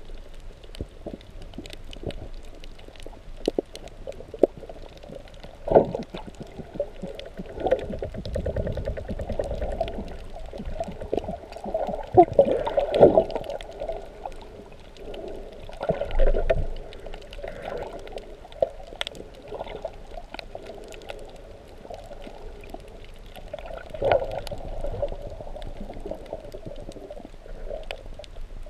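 Underwater sound heard through a GoPro's waterproof housing: muffled water noise and low rumble with many faint scattered clicks, and a few louder thumps and whooshes of water moving against the camera.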